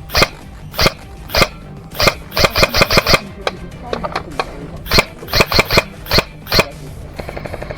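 Airsoft gun firing sharp shots: single shots about half a second apart, then two quick strings of four to six shots. Near the end a fast, even pulsing sound starts.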